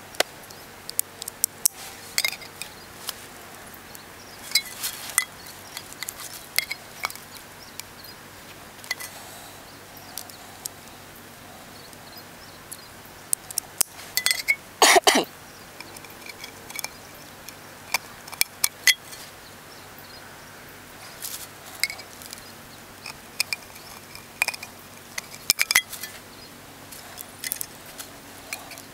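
Multi-tool awl punching holes through the end of a tin can: irregular sharp metallic clicks and taps, with a dense run of them about halfway through.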